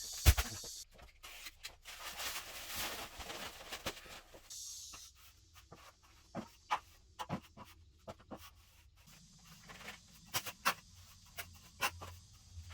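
Irregular knocks and taps with stretches of scraping, typical of hand work with wood and tools, such as marking and handling boards. A sharp knock comes just after the start.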